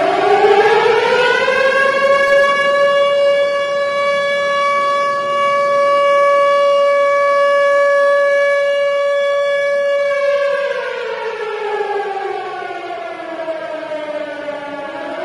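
Civil defense siren sounding one long wail. Its pitch winds up over about two seconds, holds steady for about eight, then slowly winds down and starts to rise again at the very end.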